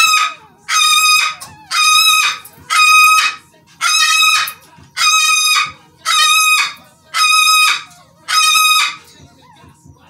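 Newborn Schnoodle puppy crying: about nine high-pitched cries, one a second, stopping about nine seconds in, while it is held on its back for tail docking.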